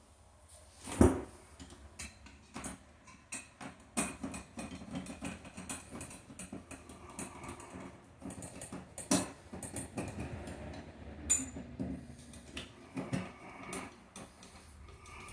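Hands fitting an extension onto an electrical box: scattered small clicks and taps of parts being handled and pressed into place, with a louder thump about a second in and a sharp ringing click about eleven seconds in.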